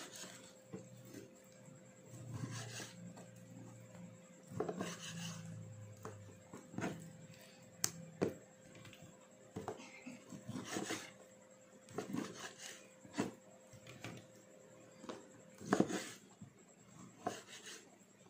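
Knife slicing raw meat on a cutting board, with irregular knocks of the blade against the board about once or twice a second.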